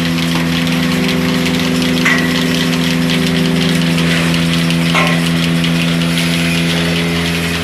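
An engine running at a steady idle, with a brief knock about two seconds in and another about five seconds in.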